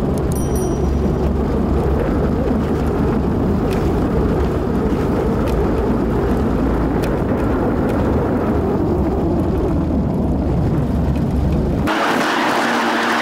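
Motorcycle running at road speed, with a heavy low wind rumble buffeting the microphone and a faint steady engine hum under it. Near the end the rumble cuts off abruptly. A brighter rushing hiss takes over, with a faint engine tone slowly rising in pitch.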